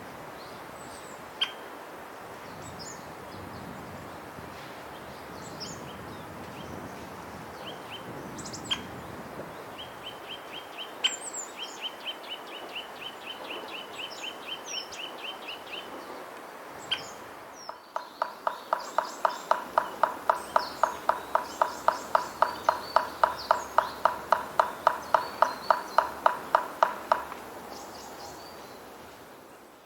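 Birds calling in woodland: scattered single sharp calls. These are followed by a long even series of short high notes at about five a second. A louder series of lower pitched notes follows at about the same pace and stops a few seconds before the end.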